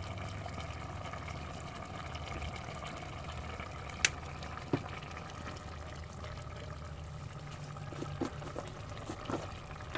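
A pot of string beans and bitter gourd boiling on a wood fire, a steady bubbling hiss. A single sharp click comes about four seconds in, and a few faint ticks near the end.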